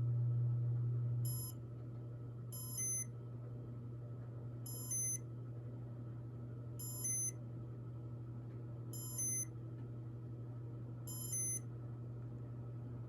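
Casablanca Stealth ceiling fan running through its Comfort Touch test mode: the motor's steady hum drops in level a little over a second in, and the fan's control gives six short electronic beeps about two seconds apart.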